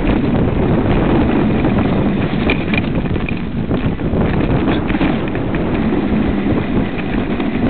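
Wind buffeting the microphone of a bike-mounted camera on a fast mountain bike descent, over the steady rumble of tyres on a leaf-covered dirt trail. A few short knocks and clatters come in the middle.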